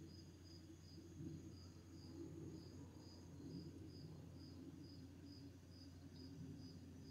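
Faint cricket chirping in an even rhythm, about two to three chirps a second, over a steady high insect hum and a soft low background rumble.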